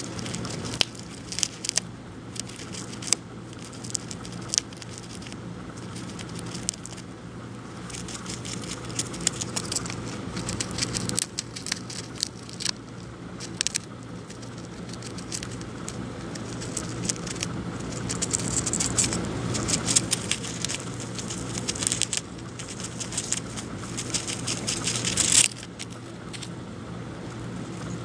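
A hamster chewing peanut pieces close to the microphone: irregular small crunches and crackling clicks, coming in clusters, with a dense run of them near the end.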